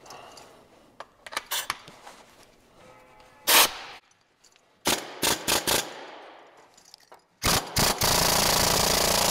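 Power Fist pneumatic needle scaler hammering its needles against a grimy engine block, loud. It fires in a few short blips at first, then runs continuously from about seven and a half seconds in.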